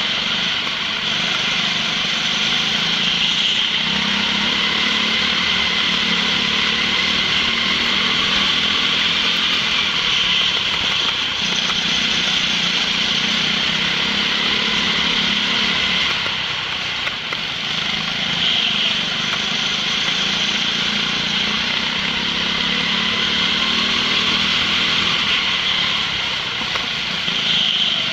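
Go-kart's small petrol engine running hard under way, a steady buzzing drone that dips briefly about halfway through.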